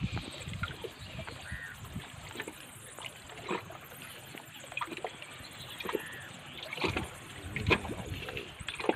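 Small waves lapping against the shore rocks, with irregular clicks and rustles from hands handling a freshly caught fish and its line while the hook is worked free; the loudest knock comes near the end.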